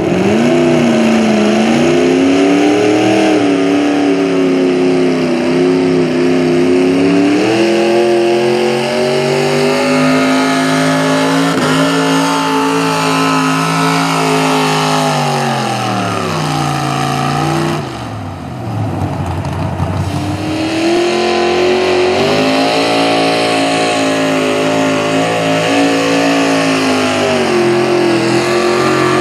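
V8 engines of hot rod pulling tractors at full throttle under load, dragging a weight-transfer sled. The engine note wavers and sags with the load. About two-thirds of the way through it slides down and drops away as a run ends, and a few seconds later a second tractor's V8 comes in at full throttle.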